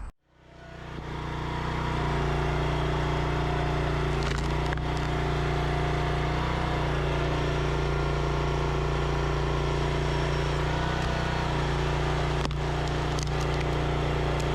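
Background music: low sustained drone-like chords that fade in after a brief silence and change pitch a few times.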